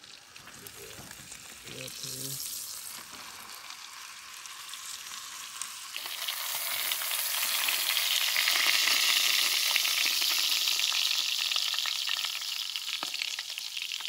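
Top sirloin steak searing in a hot cast-iron skillet, sizzling steadily. The sizzle turns suddenly louder about six seconds in, then eases off near the end.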